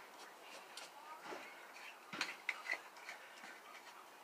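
Faint clicks and taps from hands handling small objects, with a few short high chirps.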